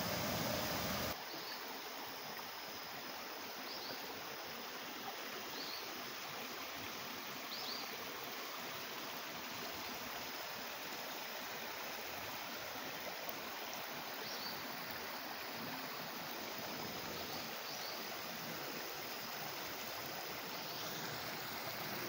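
Shallow mountain stream flowing steadily over rocks and gravel, a continuous even sound of running water.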